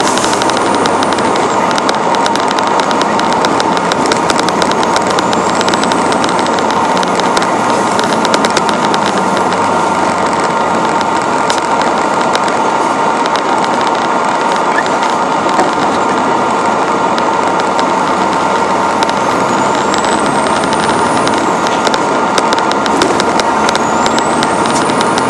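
Western Star quad-axle tipper truck driving at steady speed, its diesel engine and driveline running loud and even with a steady whine and a constant fine rattle. A faint high whistle rises and falls four times.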